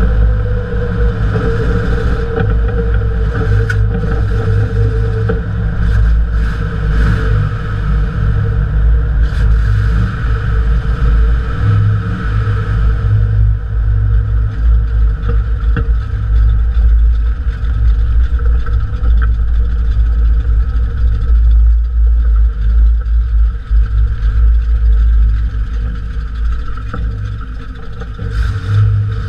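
Jeep CJ-5 driving on pavement, heard from beneath the chassis: engine running and mud-terrain tyre road noise over a heavy low rumble, with a few sharp rattles in the first ten seconds. The noise eases near the end as the Jeep slows to a stop.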